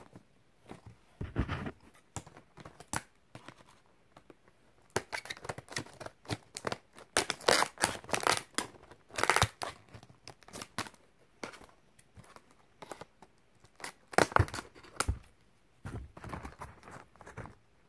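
Scissors snipping through stiff clear plastic blister packaging, with the plastic crackling and crinkling as it is handled. The noise comes in irregular bursts of sharp crackles, busiest in the middle and again near the end.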